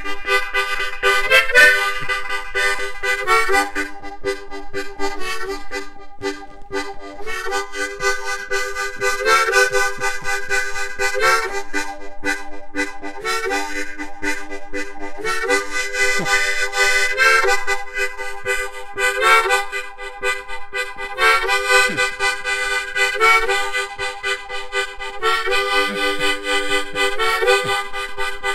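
Harmonica playing a tune, several notes sounding together in chord-like phrases of a second or two each.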